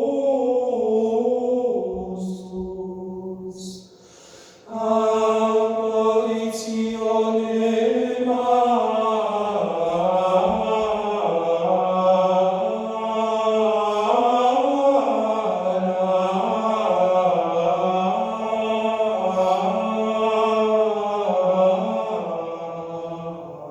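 A choir singing a slow Requiem in sustained chords, played back through hi-fi loudspeakers. One phrase dies away in the first few seconds, a new full-voiced phrase enters about five seconds in and is held, then fades near the end.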